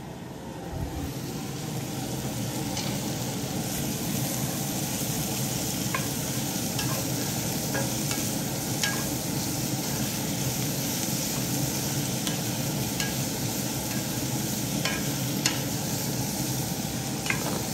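Diced meat, onions and sliced peppers sizzling steadily in a Finex cast iron skillet. A wooden spatula stirs them, with light taps and scrapes against the pan now and then.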